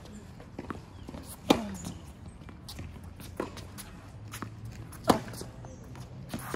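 Tennis ball being struck by rackets and bouncing on a hard court: a sharp, loud hit about one and a half seconds in and another about five seconds in, with fainter hits and bounces between, over a steady low hum.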